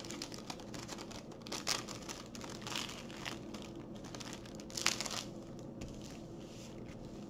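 Plastic crinkling and rustling as hands press and smooth a diamond painting canvas in its clear protective film, trying to make it lie flat. There are scattered short crackles, the loudest about five seconds in.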